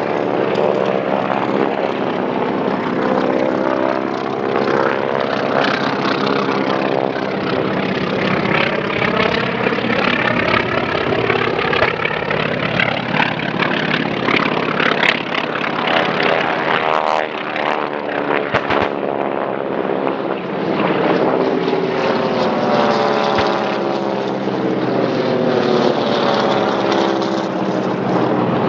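Several propeller-driven piston-engine warplanes making low passes one after another, their engine drone sliding down in pitch as each one goes by.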